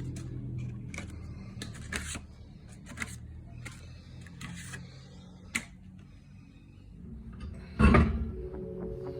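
Scattered light clicks and knocks over a low rumble that fades, a single heavy thump near the end, then background music starting.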